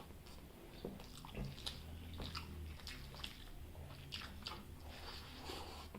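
Faint, close-miked chewing of chicken gizzard, with many small wet clicks and crunches of the mouth and food at irregular intervals.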